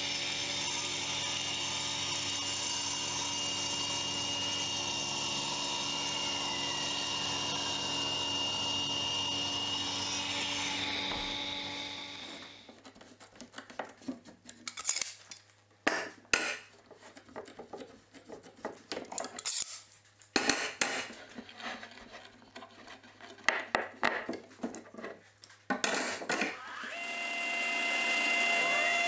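A table saw runs and cuts a board for about ten seconds, then winds down. Scattered clicks and knocks of steel bar clamps being set and tightened follow. Near the end a Metabo SPA 1200 planer-thicknesser motor starts and runs steadily.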